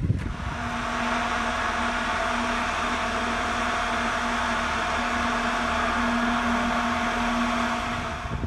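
Foam machine's blower running with a steady, even whir and a constant hum.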